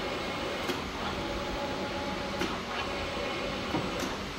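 CP-330 cold-press pizza dough opening machine running with its press head down on the dough: a steady mechanical hum, with a few faint clicks.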